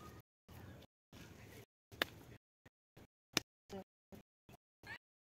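Hands patting and pressing wet cow dung into a dung cake: faint, with a few sharp slaps, the clearest about two seconds in and again about three and a half seconds in.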